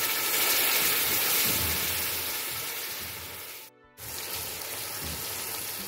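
Onions, whole spices and ginger-garlic paste sizzling steadily in hot oil in a steel pot as they are stirred with a wooden spoon. The sizzle cuts out briefly just before four seconds in, then resumes.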